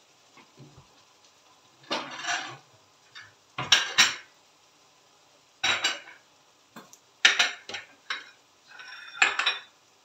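Kitchen clatter of metal pots, lids and cutlery being handled: five separate bursts of clinks and knocks, spaced a second or two apart.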